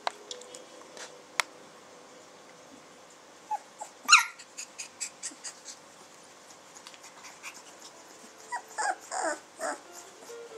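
Samoyed puppies whimpering: one sharp high-pitched cry about four seconds in, then a cluster of short whines near the end. Light scattered clicks and a faint steady hum lie underneath.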